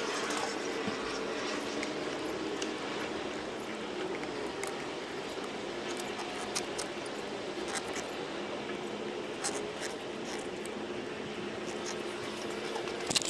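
Scattered light clicks and rubbing of hands working a rubber carburetor boot onto a Yamaha Warrior 350's carburetor, over a steady background hiss with a faint hum.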